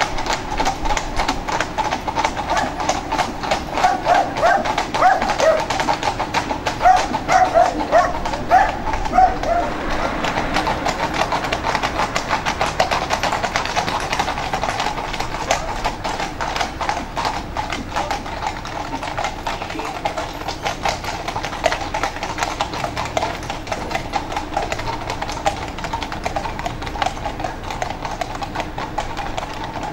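Hooves of a team of four grey horses pulling a carriage, a rapid, steady clip-clop that continues throughout.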